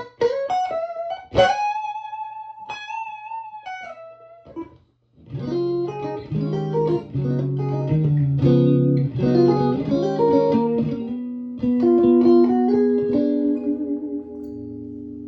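Electric guitar played through a 2004 Victoria 35310 valve combo amp, a clone of the tweed Fender 5E7 Bandmaster with three Jensen P10R speakers, on its bright channel turned up. It opens with picked single notes and one long held lead note, falls silent briefly about five seconds in, then plays a riff of chords and low notes that ends on ringing held notes.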